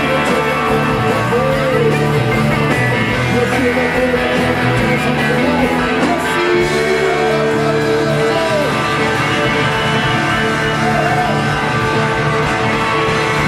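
A rock band playing live: electric guitars and drums, with pitches sliding up and down in the lead part.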